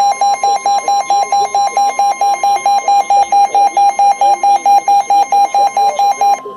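Weather alert radio receiver sounding its alarm: a loud, rapid electronic beeping of about six beeps a second, over a steady high warning tone, signalling an incoming weather warning. The beeping stops near the end while the steady tone carries on.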